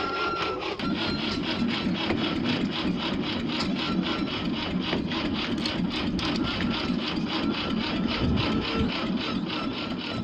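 M29C Weasel tracked carrier's Studebaker six-cylinder engine running, with a fast, regular mechanical clatter; the engine gets louder just under a second in.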